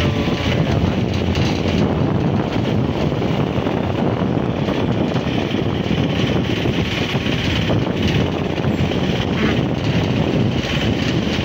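Steady rushing road and engine noise heard from inside a moving vehicle in traffic.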